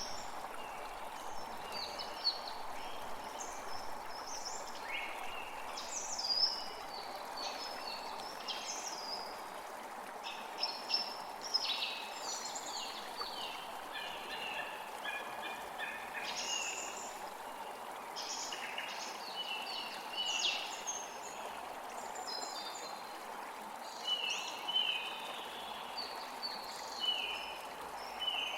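Small creek flowing steadily, with many short chirps and songs of forest birds over it.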